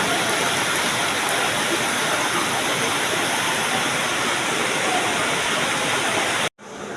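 A steady, loud rush of heavy rain and flowing floodwater. It cuts off abruptly near the end, giving way to a quieter background.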